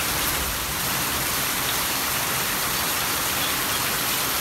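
Heavy rain pouring down steadily, splashing on flooded ground: an even, unbroken hiss.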